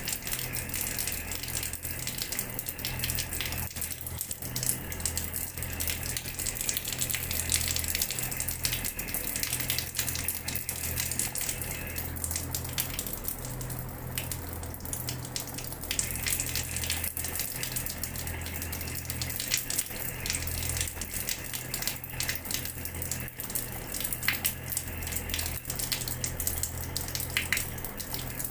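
Water running from a tap and splashing onto a hard floor: a steady spattering hiss full of small drop ticks, with a low rumble wavering underneath.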